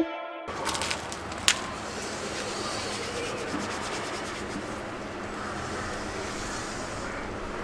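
Hands being rubbed together against a steady background hiss, starting after a brief silence, with one sharp click about a second and a half in.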